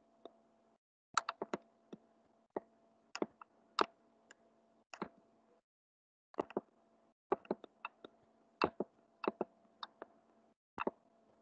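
Irregular sharp clicks of a computer mouse, roughly two a second, over a faint steady hum that cuts out now and then into dead silence.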